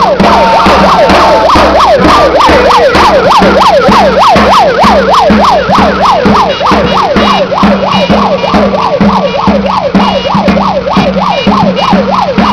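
A vehicle siren in a fast up-and-down yelp, about three cycles a second, with drums beating underneath.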